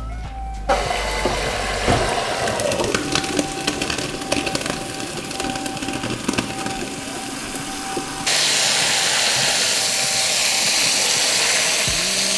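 Pot of boiled basmati rice and its hot water poured into a stainless steel mesh strainer in a metal sink, splashing and hissing with many small patters. About eight seconds in it switches to a steady rush of running tap water rinsing the drained rice.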